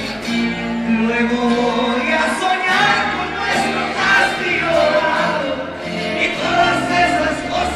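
A man singing a Spanish-language romantic ballad live, accompanied by acoustic guitar, with steady low bass notes underneath.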